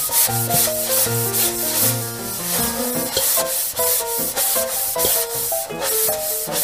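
A small sponge scrubbing a plastic doll in a toy bathtub, heard as quick repeated rubbing strokes. Light instrumental background music plays underneath.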